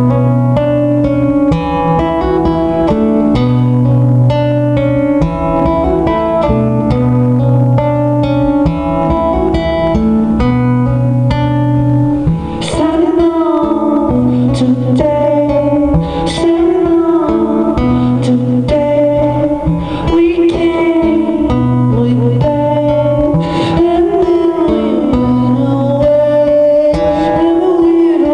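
Live rock music from a concert: guitar chords held over a repeating low bass pattern, with a singing voice coming in about twelve seconds in.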